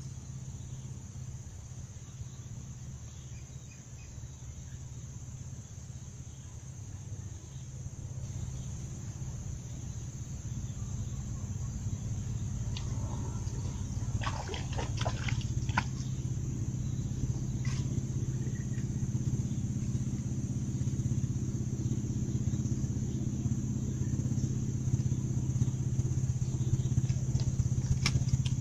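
Engine of a tug towing a barge on the river: a steady low engine hum that grows steadily louder as it approaches. A short run of sharp clicks about halfway through.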